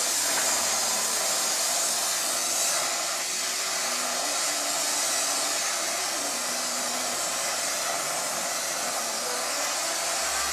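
Gas brazing torch flame hissing steadily while it heats the bridge joint between a steel bicycle frame's stays.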